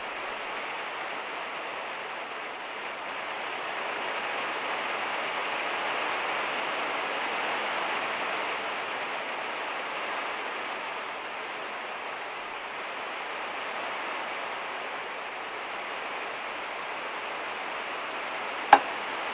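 Heavy rain falling steadily on a van's metal roof, an even hiss with no single drops standing out. A single sharp click comes near the end.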